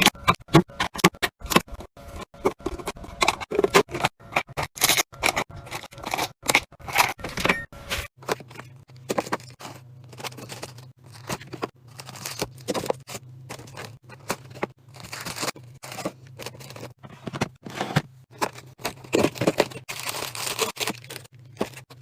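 Rapid clicks, clacks and scrapes of containers and packages being handled and set in place during restocking, densest in the first third. A low steady hum comes in about eight seconds in.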